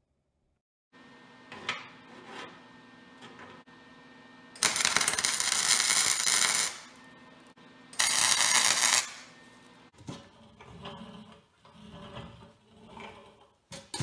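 Electric arc welding a rebar handle onto a steel water-heater tank: two loud bursts of steady crackling, about two seconds and then about one second long. Light metal clinks and knocks come before and after.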